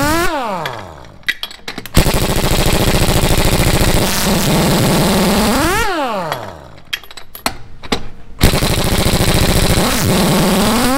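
1-inch Ingersoll Rand air impact wrench hammering on a semi-truck lug nut in long loud runs. Each run ends with the motor spinning up to a rising whine, then winding down when the trigger is let go. One run dies away at the start, another runs from about two seconds to six, and a third starts about eight and a half seconds in.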